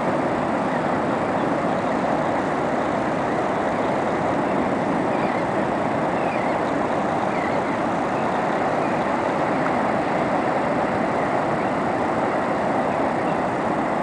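Ocean surf breaking along a sandy beach: a steady, even roar of waves.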